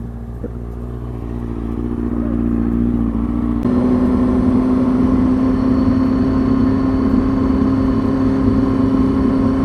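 Kawasaki ZX-6R 636 sportbike's inline-four engine idling, growing slowly louder. About three and a half seconds in the sound changes suddenly to the engine running steadily under way, louder and mixed with wind and road noise.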